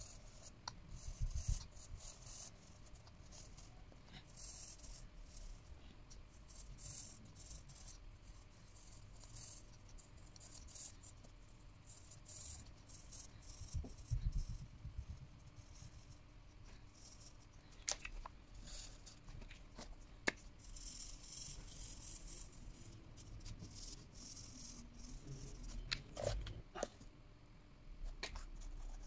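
Felt-tip marker scribbling on paper in many short scratchy strokes, with a few sharp clicks and soft knocks as markers are handled and set down.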